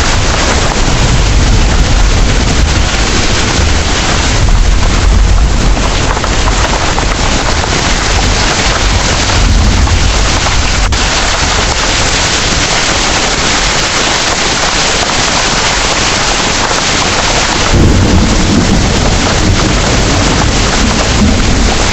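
Heavy rain pouring steadily, with low thunder rumbling underneath and swelling about four seconds in, again around nine seconds, and once more near eighteen seconds.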